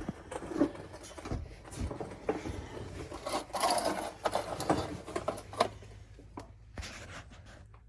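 Irregular handling noise: small clicks, knocks and rustling of things being picked up and moved about, busiest in the middle and dying away near the end.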